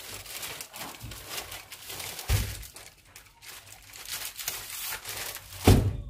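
Rustling and crinkling handling noise, with two dull thumps, one about two seconds in and a louder one near the end.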